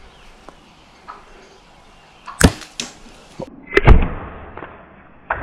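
Topoint Precision T1 compound bow (about 55 lb draw) shooting at turkeys: a sharp crack as the string releases the arrow about two and a half seconds in, then a louder thump about a second and a half later, with a smaller click near the end.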